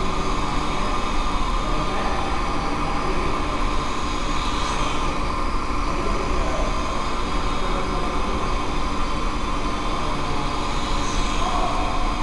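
Steady whine of a micro quadcopter's small electric motors, several tones held at a constant pitch over a constant hiss.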